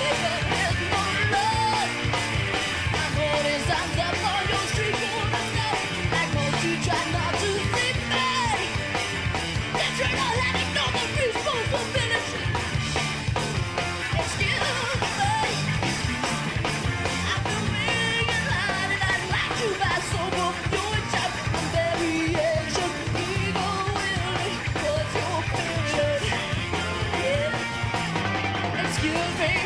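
A live rock band playing a song: a lead singer over electric guitar and a steady drum beat.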